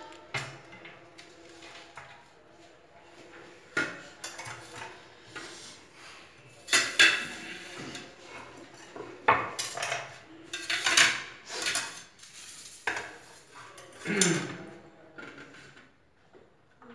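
Steel plates and a kitchen knife clattering and scraping on the counter as shredded cabbage is tipped off a chopping board into a plate, in irregular knocks every second or two.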